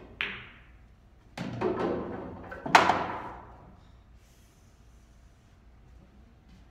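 Pool balls: a faint cue-tip tap, then a sharp crack as the cue ball hits an object ball. About a second later the pocketed ball drops and rumbles down through the table's ball return, ending in a loud ringing clack near three seconds in as it knocks into the balls already collected there.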